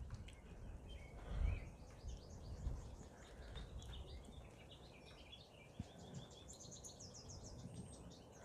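Outdoor birds chirping and calling faintly, with a quick run of rapid high notes near the end, over a low rumble that swells briefly about a second and a half in.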